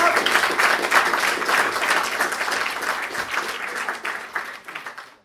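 Audience applauding at the close of a talk, the clapping thinning and fading out near the end.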